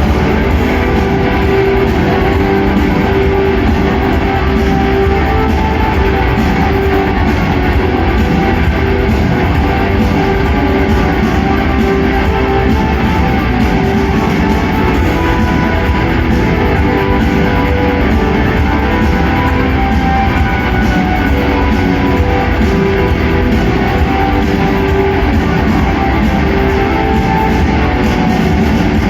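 Rock band playing live: electric guitars over a drum kit, a loud instrumental passage with no singing.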